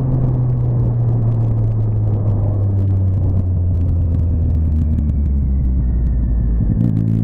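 Motorcycle engine running under the rider, heard from the bike itself, its pitch falling slowly and evenly as the bike rolls off the throttle, then picking up again to a higher, steady note near the end.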